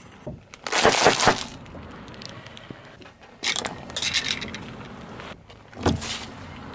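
A car tyre rolling over and crushing objects on asphalt: crackling crunches about a second in and again around four seconds in, then near the end a cardboard juice carton bursting under the tyre with a low thud.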